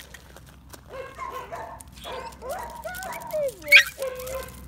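Bull terrier puppies yapping and whining in short, high, excited calls that slide up and down in pitch, with one sharp squeal about three-quarters of the way through, the loudest sound.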